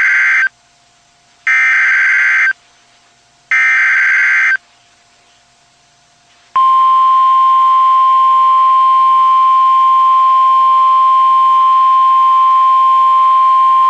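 NOAA Weather Radio SAME alert header: the end of one burst of buzzing digital data, then two more, each about a second long and a second apart. About six and a half seconds in, the steady 1050 Hz warning alarm tone starts, signalling that a warning broadcast, here a flash flood warning, is about to follow.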